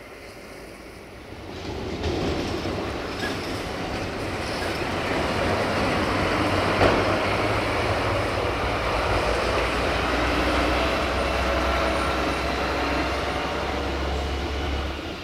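A heavy diesel vehicle passing close by: a low engine drone under a rushing rumble that swells about a second and a half in, holds steady with one sharp knock about halfway through, and fades near the end.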